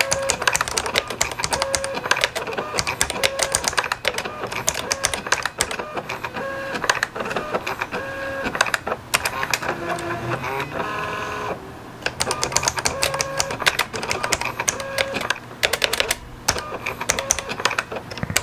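Canon TypeStar 220 thermal typewriter typing in character print mode: a fast, steady run of key clicks, each character printed at once with a short buzz from the print head's motor. About ten seconds in comes a longer stepped motor whine as the carriage returns for the next line.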